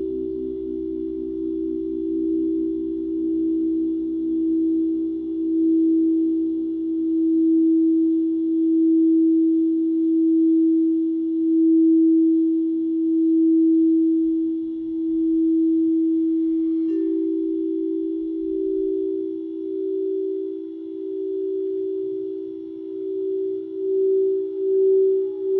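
Singing bowls ringing in two steady, close tones that swell and fade in slow waves. About two-thirds of the way through a light strike brings the upper tone up, and the wavering quickens near the end.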